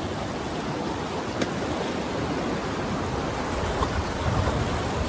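Fast, high river water rushing steadily past a raft through choppy riffles, with one faint click about a second and a half in.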